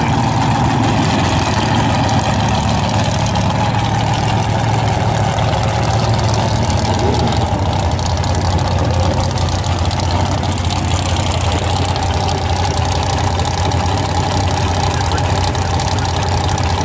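Dragster engine idling loudly and steadily, with no revving, as the car is brought back to the start line after its burnout.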